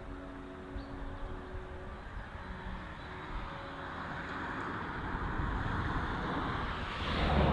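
A car approaching and driving past, its road noise swelling to a peak near the end and then falling away; faint background music fades out in the first few seconds.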